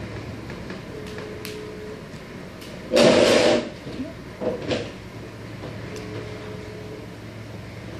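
A small cardboard box from a phone package being handled: a short, loud scraping rustle about three seconds in, then two softer rustles and a few light taps.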